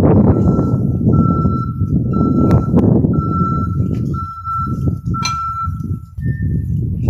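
Vehicle reversing alarm beeping steadily, about once a second, in long beeps with short gaps, over a low rumble of street noise. The beeping stops just before six seconds in, and a single shorter, higher beep follows.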